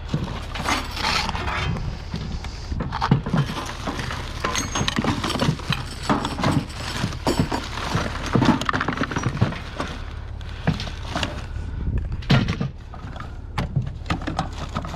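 Scrap items being handled and moved about, with irregular knocks, clunks and rattles over a steady low hum.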